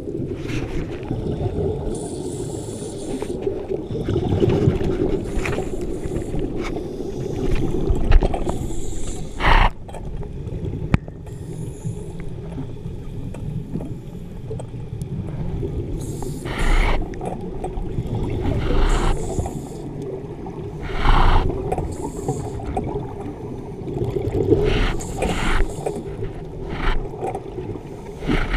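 Scuba regulator breathing heard underwater through a GoPro housing: muffled bursts of exhaled bubbles every few seconds over a steady low rumble.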